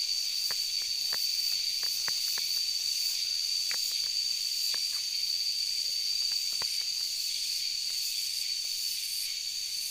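Steady high-pitched drone of insects in the forest, with short crackles of footsteps on dry leaves and twigs scattered through it.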